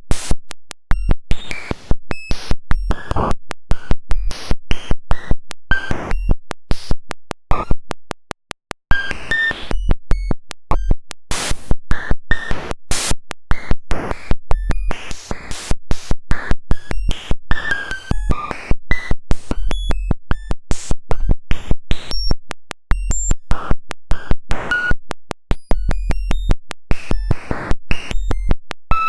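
Synthetic audio made by writing the normalized population ratio of a Generations-rule cellular automaton directly as waveform samples. It is harsh, buzzing digital noise, dense with rapid clicks and short tones that jump in pitch, changing character every second or so, with a brief drop-out near 8 s.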